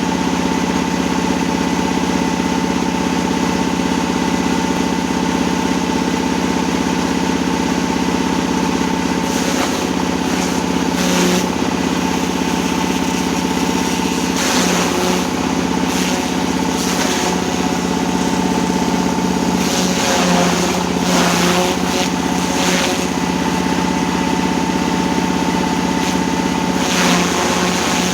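Diesel engine running steadily at a constant speed, with short bursts of hiss now and then.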